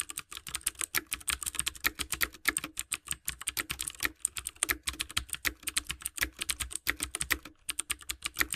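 Typing sound effect: rapid key clicks, several a second, as on-screen text types itself out letter by letter. There is a brief pause near the end.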